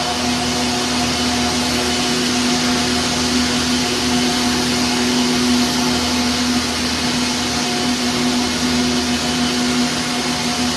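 Several circular knitting machines running together in a knitting hall: a steady whirring hiss over a constant hum that never changes.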